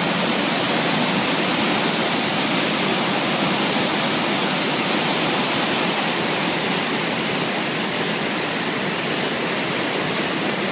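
The Úpa river in flood: fast, muddy water rushing and churning in standing waves, a steady, loud roar of water.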